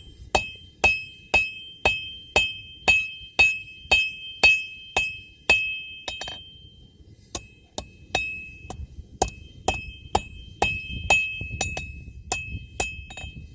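Blacksmith's hammer striking steel on an anvil, about two ringing blows a second. The blows are half-on, half-off the anvil face, forging an offset. They stop for about a second and a half midway, then resume.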